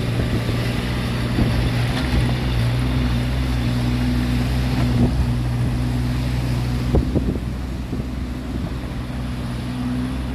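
Mini excavator engine running steadily, with a few faint knocks about halfway through.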